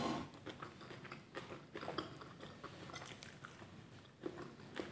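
Close-up sounds of a person chewing and biting food, with irregular small wet mouth clicks.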